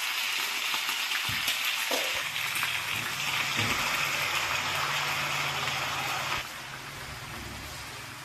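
Native chicken adobo frying in a wok with a steady sizzle, which falls noticeably quieter about six and a half seconds in.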